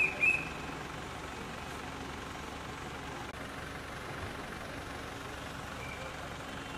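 Two short, high-pitched beeps right at the start, with one faint beep about six seconds in, over a steady outdoor background of distant traffic and crowd noise.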